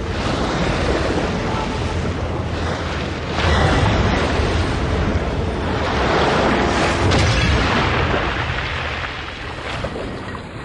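Film sound effects of a martial arts fight: a continuous rumbling blast, swelling twice and easing near the end.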